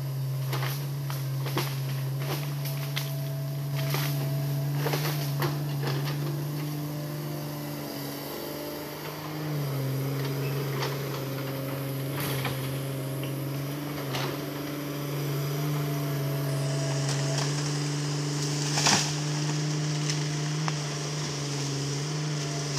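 Hitachi Zaxis hydraulic excavator's diesel engine running steadily under working load, its note stepping down slightly about ten seconds in. Short knocks and cracks come and go as the bucket works among logs and brush, the loudest near the end.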